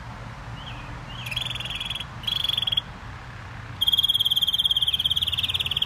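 Gloster canary singing fast rolling trills: two short rolls, then a longer, louder roll from about four seconds in.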